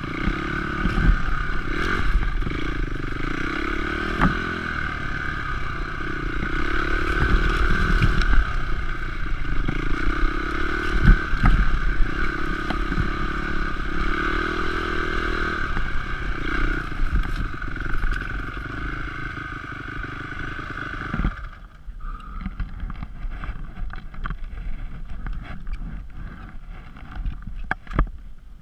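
Honda CRF250X's four-stroke single-cylinder engine running on a trail, its pitch rising and falling with the throttle, with clatter and scrapes from the bike over rough ground. About three-quarters of the way through the engine cuts out suddenly, leaving scattered clicks and knocks.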